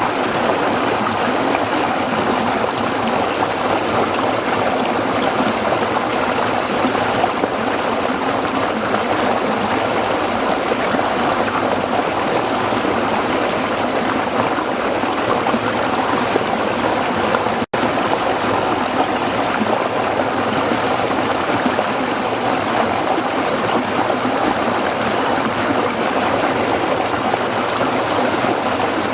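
Waterfall rushing with a steady, even roar of falling water. The sound drops out for an instant about 18 seconds in.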